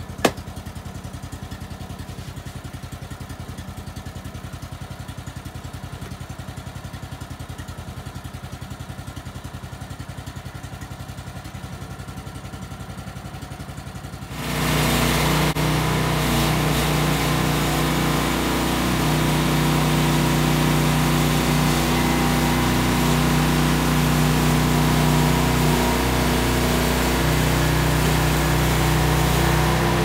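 Woodland Mills HM130 bandsaw mill's petrol engine idling steadily, then throttled up suddenly about halfway through and running steadily at high speed, ready to cut.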